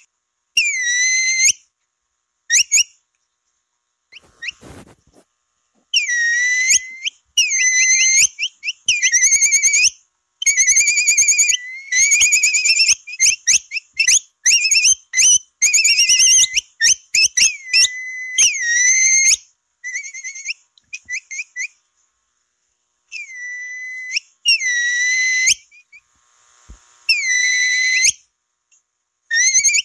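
Capybara whistle calls, played as a lure to attract capybaras: a long series of high, shrill whistled chirps, each under a second, some bending up or down in pitch, coming in clusters separated by short silent gaps.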